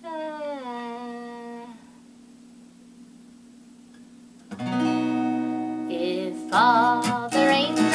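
A short hummed note sliding down in pitch, a quiet pause, then acoustic guitar strumming starts about halfway through with a voice singing the song over it near the end.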